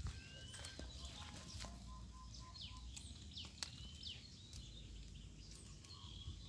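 Birds chirping in many short, quick calls, faint over a steady low rumble, with a brief run of evenly spaced pips about a second in.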